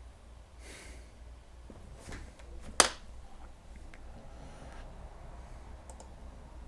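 Scattered clicks from a computer keyboard and mouse, with one sharp, loud click a little under three seconds in, over a faint steady hum.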